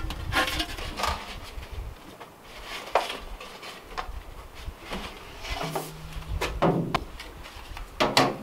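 Metal clanks and knocks as black stovepipe sections and wood-stove parts are handled and fitted together. There is a sharp knock about three seconds in and a cluster of louder knocks near the end.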